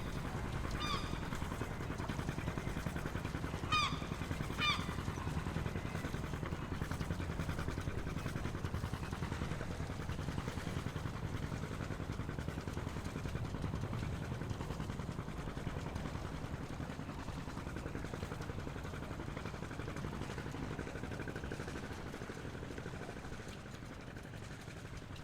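Harbour ambience: a boat's motor running with a steady low rumble that fades over the last few seconds, with a few short bird calls about one, four and five seconds in.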